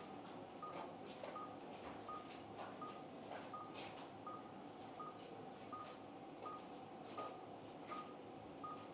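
Anaesthetic patient monitor beeping once per heartbeat. The short, even beeps come about every 0.7 s, a pulse of roughly 85 a minute in the anaesthetised dog, with occasional faint clicks over them.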